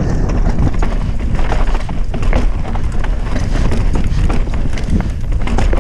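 Mountain bike descending a dry dirt trail at speed: tyres rumbling over loose dirt and stones, with a rapid, irregular run of rattles and knocks from the bike over the bumps.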